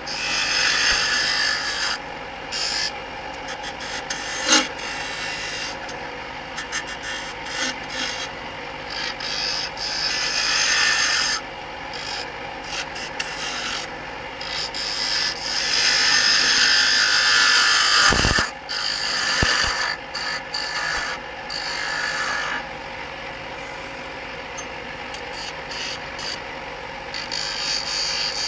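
Oneway 2436 wood lathe running with a gouge cutting the spinning oak blank in on-and-off passes, a scraping hiss over the lathe's steady hum as the bottom is rounded. A single low thump comes about two-thirds of the way through.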